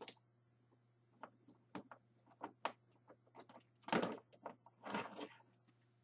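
Hard plastic clicking and knocking from action figures being handled against a plastic storage tote: a run of small clicks, with two louder knocks about four and five seconds in.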